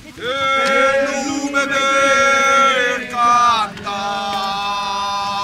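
Pilgrims chanting a devotional song in long held notes: one loud held phrase that slides down a little after three seconds, then a second held note.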